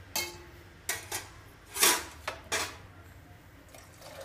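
Metal kitchenware clinking and knocking against a pressure cooker pot, about six sharp clinks in under three seconds, the loudest and longest near two seconds in. Water starts pouring into the pot near the end.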